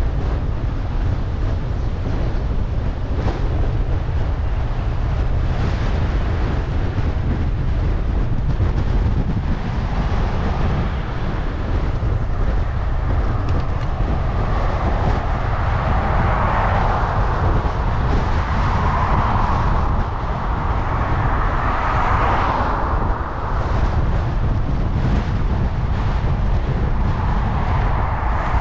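Wind buffeting the microphone of a GoPro action camera on a moving bicycle: a steady low rumble, with a rushing noise that swells and fades several times from about ten seconds in.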